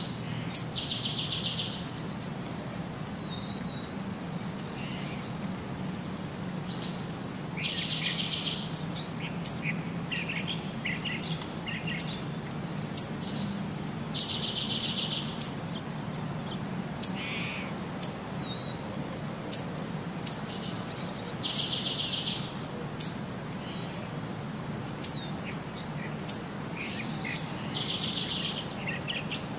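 Looped background track of bird chirps with a short buzzy trill, the same phrase repeating about every six to seven seconds over a steady low hum.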